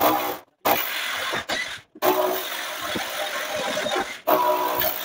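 Handheld corded electric drill running under load, drilling. It stops and restarts abruptly several times.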